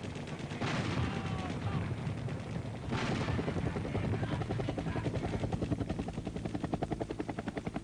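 Rapid, steady pulsing like a helicopter rotor, with two sharp bangs, about a second in and three seconds in.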